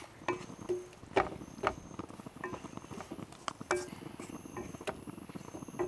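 Wooden spatula stirring a thick fried masala in a nonstick frying pan: irregular scrapes and light knocks of the spatula against the pan.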